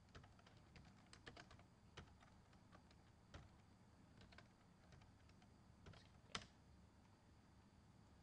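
Faint typing on a computer keyboard: irregular key clicks as a file name is typed, with one sharper click about six seconds in.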